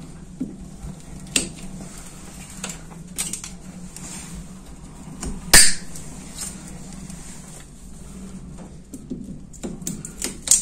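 Pliers snipping plastic cable ties and bundled wiring being tugged, heard as scattered clicks and snaps, with one sharp snap about halfway through and a quick run of clicks near the end, over a steady low hum.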